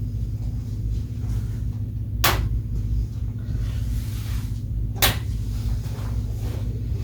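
Two sharp snaps, about two and a half seconds apart, as the plastic decorative covers are pressed into place over the screws on the air cleaner's front cover. A steady low hum runs underneath throughout.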